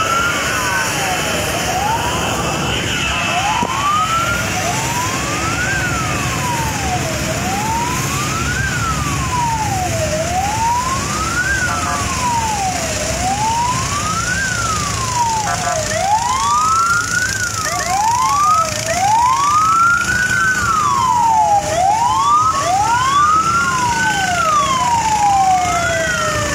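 Fire engine sirens wailing, each rising and falling slowly about once every three seconds, over a steady low rumble. About two-thirds of the way in, a second siren joins out of step with the first, and the sound grows a little louder.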